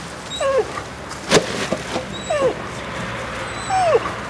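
Dog whining in several short cries, each falling in pitch, with a sharp click a little over a second in.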